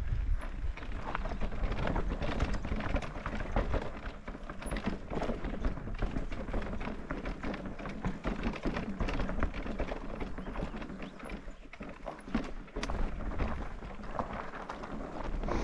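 Electric mountain bike going over a rocky trail: a dense, irregular clatter of knocks and rattles from stones under the tyres and the bike shaking, over a steady low rumble.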